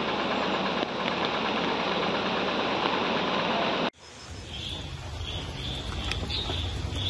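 Floodwater rushing over a submerged causeway: a steady, loud roar of water. It cuts off suddenly about four seconds in and gives way to a quieter low rumble with faint high chirps about every half second to second.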